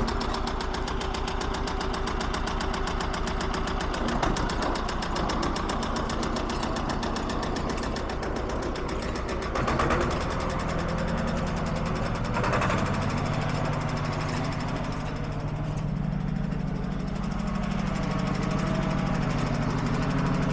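Lamborghini R230 tractor's diesel engine running as it is driven, its note deepening and getting fuller about halfway through, with a couple of brief clunks about ten and twelve seconds in.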